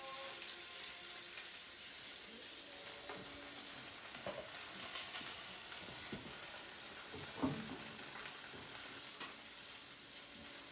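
Italian hot sausage sizzling as it fries in oil in a pan, a steady hiss, with one brief louder sound about seven seconds in.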